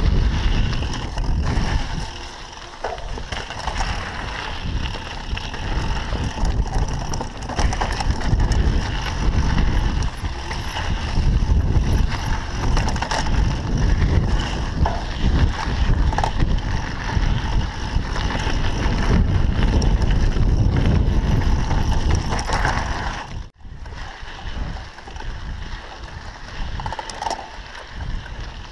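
Mountain bike riding fast down a dirt singletrack: wind buffeting the microphone, tyres on dirt and the bike rattling over bumps in many quick clicks. About three-quarters of the way through the sound cuts out for a moment and comes back quieter.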